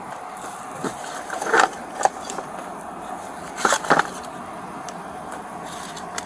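Items being handled and moved about inside a truck cab during a hand search: a handful of short knocks and clatters, the clearest around 1.5 to 2 seconds in and again near 4 seconds, over a steady background hiss.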